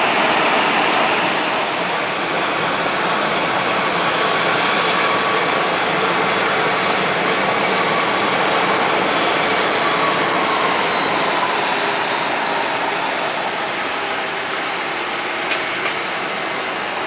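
Jet engines of taxiing Airbus A320-family airliners at low power: a steady rush with a faint whine that drops slightly in pitch about ten seconds in. Two short clicks near the end.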